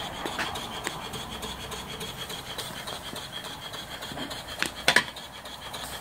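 Steady hiss of steam escaping from a small live-steam fire-tube boiler, with a few sharp clicks, the loudest about five seconds in.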